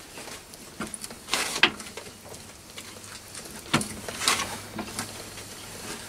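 Lathe spindle turned by hand with a mandrel handle while a 6 mm split die cuts a thread: a handful of irregular clicks and short scraping sounds from the die and handle, over a faint low hum.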